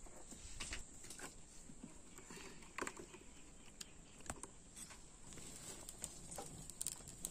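Faint, scattered light clicks and knocks of hands at work: scraping spice paste on a stone grinding slab and handling bowls and firewood.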